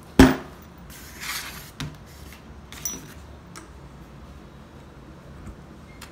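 Steel resin-pump cylinder and lower housing knocking and clinking as they are fitted together by hand: one sharp metal knock just after the start, then a short rattle and a few light clinks.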